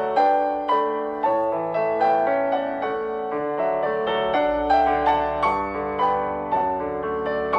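Background music: gentle piano playing a flowing melody, a new note about every half second.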